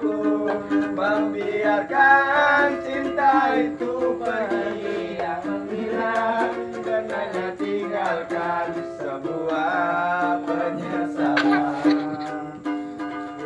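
Ukulele strummed steadily, with young men's voices singing a melody over it.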